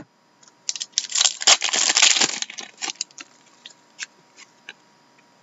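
Trading cards sliding and flicking against one another as a stack is sorted by hand: a dense rustle for about a second and a half, starting about a second in, then a few scattered light clicks.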